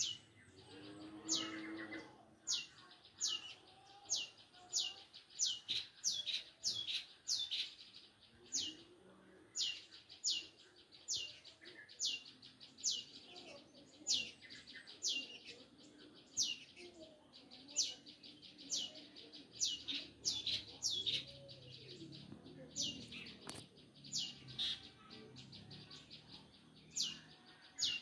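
Long-tailed shrike (cendet) calling: a long run of sharp, high notes that each drop steeply in pitch, repeated about one to two times a second, some in quick pairs.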